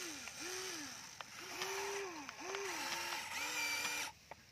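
Huina radio-controlled toy excavator's small electric motors whirring as the boom and bucket move. There are about six short whirs, each rising in pitch, holding steady, then falling away, with a few faint clicks. They stop abruptly just after four seconds in.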